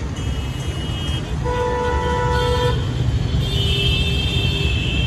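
Several vehicle horns honking in turn over a steady engine and road rumble: a short high beep at the start, a lower horn about a second and a half in, and a long high honk from about three and a half seconds on.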